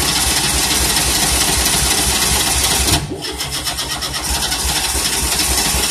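Starter motor cranking the engine of a 1988 Tennant 255 Series 2 in a fast, even rhythm without it catching, a crank-no-start. The cranking stops briefly about three seconds in, then starts again.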